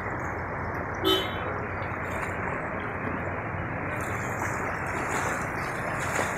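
Steady rush of seawater flooding across a street, with one short vehicle horn toot about a second in.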